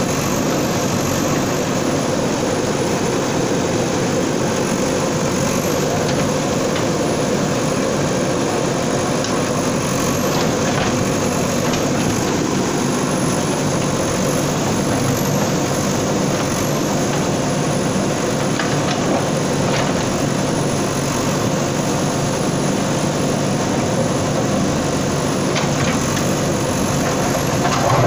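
A bulldozer's diesel engine running steadily, with a few faint knocks over the top.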